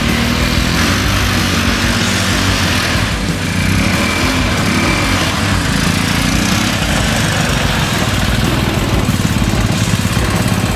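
Small engine of a 1969 Roof Palomino lawn-mower mini jeep running steadily as it is driven on its first test drive.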